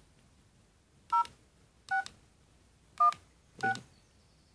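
LG GS101 mobile phone keypad tones: four short two-tone beeps at uneven intervals, one for each digit keyed in.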